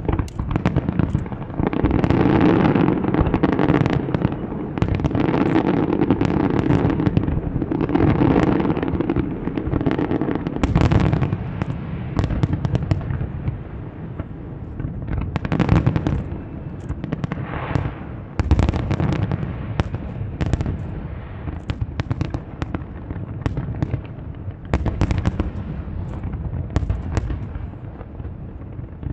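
Large fireworks display: shells bursting in quick succession, deep booms mixed with sharp bangs and crackling. It is densest through the first ten seconds or so and thins a little later on.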